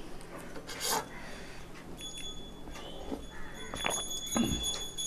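Close-up eating sounds: chewing and lip smacking with small wet clicks from mouthfuls of rice and fish curry. A thin, steady high whine comes in about two seconds in.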